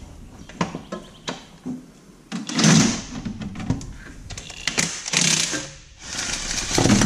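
Cordless impact wrench rattling in about three short bursts as it undoes gearbox bolts, with metal clicks and clanks from the tool and sockets in between.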